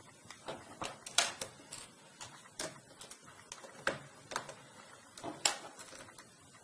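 Small laptop screws clicking and tapping as they are picked out of their holes with a magnet and handled on the plastic case: about a dozen sharp, irregular clicks.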